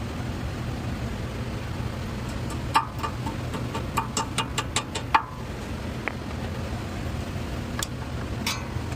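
Steady low mechanical hum, with a quick run of about eight sharp clicks, several a second, about three seconds in, then a few single clicks, typical of hand tools worked on a vehicle.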